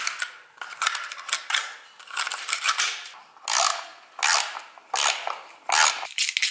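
Screwdriver scraping old paint out of a bolt hole in the ceiling in short, repeated strokes. Near the end a socket ratchet wrench starts clicking rapidly as it turns the nut on the bolt.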